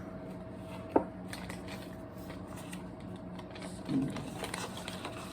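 Crinkling and clicking as MRE packaging and the ration-heater bag are handled, with one sharp knock about a second in and a brief low thud near four seconds, over a faint steady hum.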